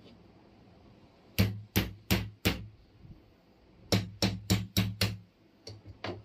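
Sharp knocks on a wooden workbench: four in quick succession, then after a pause five more at about three a second, then two fainter taps near the end.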